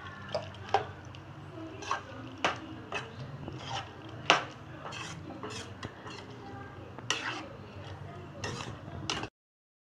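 Slotted steel spoon stirring wet chicken gravy in a metal kadai, scraping and clinking against the pan at irregular intervals. The sound cuts off abruptly near the end.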